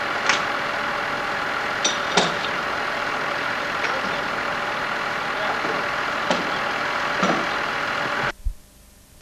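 Heavy vehicle engine idling steadily while a boat hull is craned onto a low-loader, with a few sharp knocks. The sound drops away abruptly near the end.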